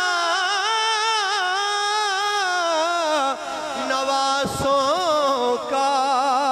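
A male naat reciter singing unaccompanied into a microphone: long held, wavering melismatic notes with no distinct words, gliding down about three seconds in before another ornamented phrase.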